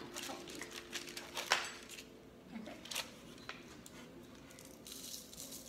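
A few light clicks and taps as a small glass bowl of cinnamon sugar is handled, the sharpest about a second and a half in; later only a couple of faint ticks and quiet room noise.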